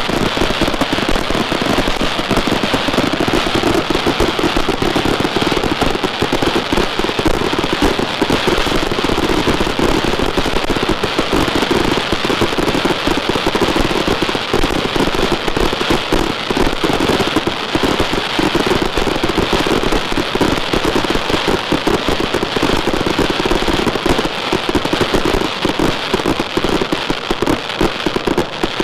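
Rubro 'Strong Salute' firework cake firing a rapid, continuous barrage of salute bangs, thinning out near the end.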